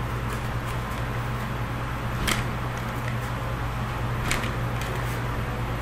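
Steady low hum, with two faint clicks about two seconds apart.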